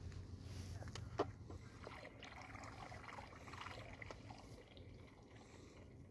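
Faint lapping and trickling of lake water at the shoreline, with a low rumble easing off over the first couple of seconds and one sharp click about a second in.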